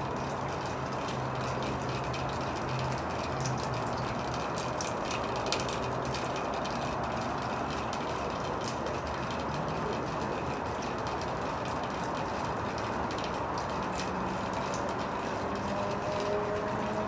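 Steady outdoor background noise with faint scattered ticks; a low hum runs through the first six seconds or so, and faint droning tones come in near the end.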